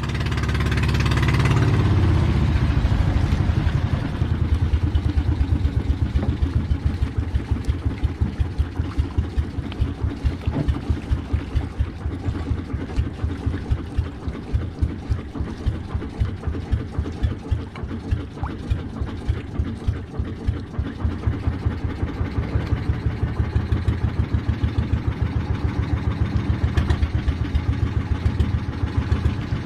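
A boat's engine running steadily with a low, even throb of about four to five beats a second, swelling up over the first couple of seconds.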